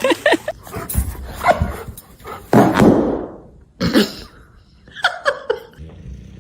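A dog barking and yipping in several short outbursts, the loudest and longest about two and a half seconds in.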